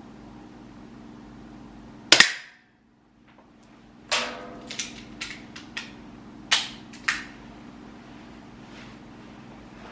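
A single shot from an air soft target pistol, a sharp crack about two seconds in. After it come a ringing metallic clink and several lighter clicks as the gun is handled and set down, over a steady low hum.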